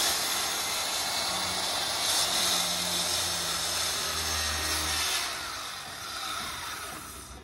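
Handheld electric circular saw cutting through a wooden board, running steadily under load. After about five seconds the cut eases and the sound dies away near the end.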